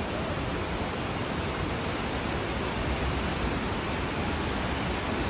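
Steady rushing of Havasu Creek's waterfall cascades, an even, unbroken wash of white-water noise.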